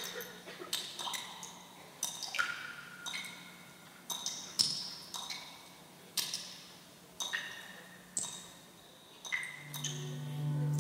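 Sparse music for a dance piece: irregular pinging, chime-like hits at varying pitches, roughly one a second, each ringing out and fading, over a faint low hum. A sustained low tone swells in near the end.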